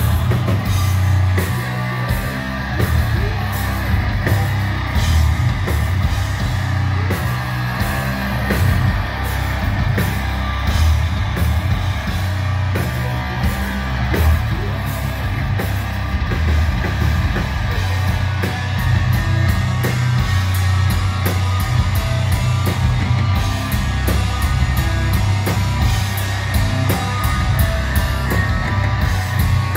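Death metal band playing live: heavily distorted electric guitars and bass over fast drums, with screamed vocals. The drum hits come thick and fast, densest in the second half.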